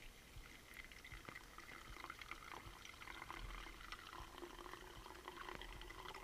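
Clean gasoline poured from a jug into a new spin-on fuel filter canister, a faint trickle as it fills: priming the filter so the electric fuel pump does not have to run dry.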